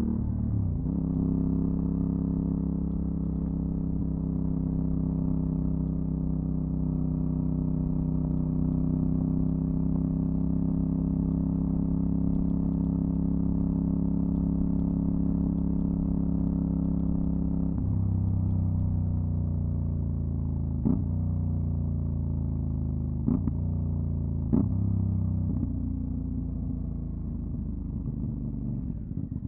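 Aprilia Dorsoduro 750's V-twin engine through a LeoVince SBK aftermarket exhaust, holding a steady engine speed, then the note changes and slowly falls as the bike slows. Three short sharp cracks come in the slowing part.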